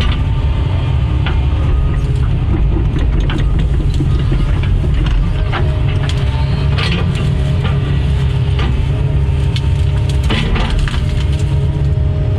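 Doosan DX140 excavator's diesel engine running steadily under load, while wood cracks and snaps again and again as the bucket and thumb work a tree and its limbs.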